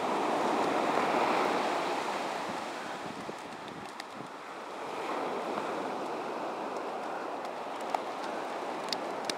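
Ocean surf breaking and washing up a sandy beach in the shore break, a swell of wash loudest about a second in, easing off, then building again about five seconds in.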